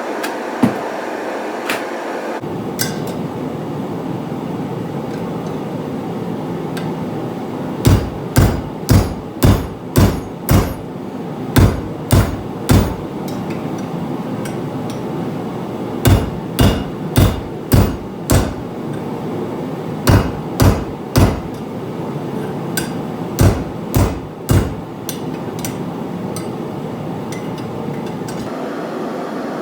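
Hammer striking hot flat steel while forging a fold, in bursts of quick blows about two a second with pauses between the bursts, over a steady rushing noise.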